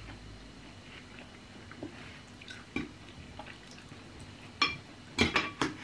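Close-up eating sounds: metal spoons tapping and scraping in bowls, with wet mouth sounds of chewing. A few scattered clicks come through the middle and a quick cluster near the end.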